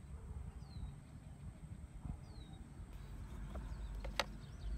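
Low wind rumble on the microphone, with two short falling bird chirps in the first half. About four seconds in comes a single sharp click as the scooter's plastic inner panel is handled.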